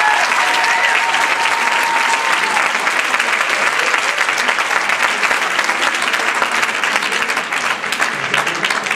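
Audience applauding loudly in a theatre at the end of a dance performance, with a few long held cheers in the first two seconds or so.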